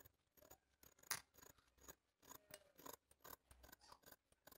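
Faint snips of scissors cutting through paper canvas, with one sharper snip about a second in and a quick run of small clicks a little later.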